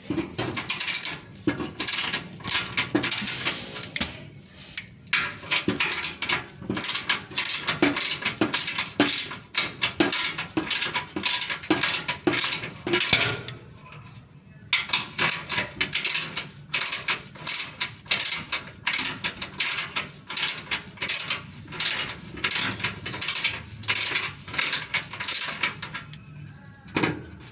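Ratchet wrench clicking in quick runs as bolts holding the engine guard of a 2010 Mitsubishi Pajero Sport are undone, with a short pause about halfway.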